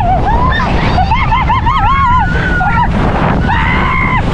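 Riders on a towed banana boat screaming and yelling in short high-pitched cries, one after another, over loud wind buffeting the microphone and rushing water.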